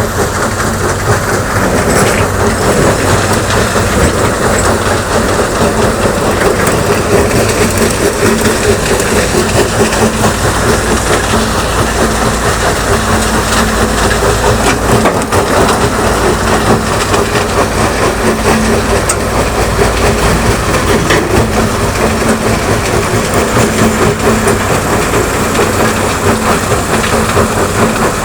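Rocks being dumped, with a loud, steady clatter and rumble over a heavy diesel engine running.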